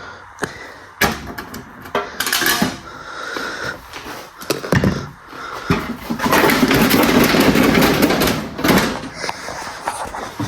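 Knocks and clanks of the damaged sheet-metal hood being worked loose from a riding mower, with a louder steady noise lasting about three seconds past the middle.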